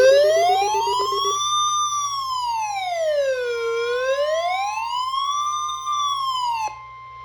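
Emergency alert siren tone announcing a tornado warning: an electronic wail that rises and falls smoothly, about four seconds per cycle, over a steady high tone. The wail cuts off near the end, leaving the steady tone sounding alone.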